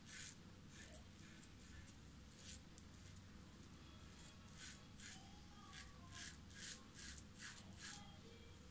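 Double-edge safety razor (Mühle R89 with a Personna Platinum blade) scraping through lathered stubble in short, quick strokes, a few a second, faint.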